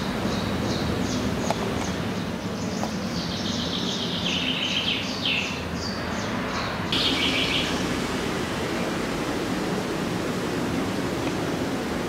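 Small birds chirping in quick repeated high notes over a steady background hiss; the chirping stops about eight seconds in, leaving only the steady noise.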